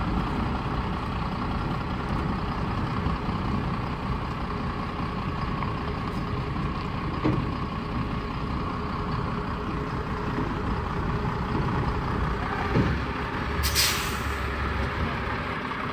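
Foden 6x6 recovery truck's diesel engine running steadily as the truck manoeuvres slowly, with a short hiss of its air brakes near the end.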